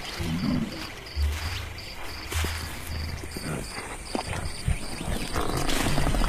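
Crickets chirping in an even rhythm, about three chirps a second, over scattered low rumbles and knocks, with a louder rush of noise near the end.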